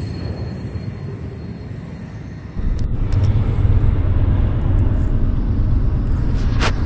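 Low, steady rumble of the diesel locomotives of an approaching BNSF empty grain train, louder after a cut about two and a half seconds in. Before the cut, a fainter rumble with a thin, steady high whine.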